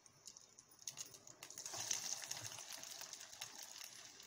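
Hot oil deep-frying a breadcrumb-coated bread-and-egg roll. It sizzles and crackles from about a second in, loudest soon after, then settles to a steadier frying sizzle.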